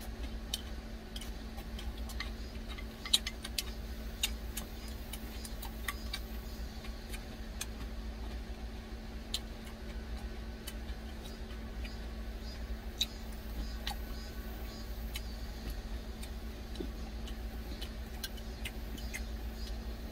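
Scattered sharp clicks of a plastic spoon tapping and scraping a plastic food container during eating, the loudest about three seconds in, over a steady low hum in the truck cab.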